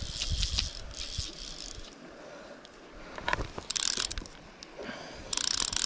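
Fly reel's ratchet clicking rapidly in three bursts as line runs through it while a hooked salmon is being played.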